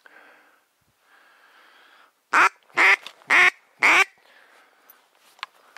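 A duck quacking four times in quick succession, about half a second between calls, loud and close.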